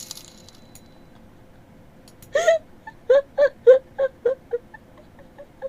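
A sleeping pet whimpering: one drawn-out high whine about two and a half seconds in, then a run of six or seven short, squeaky whimpers, about three a second.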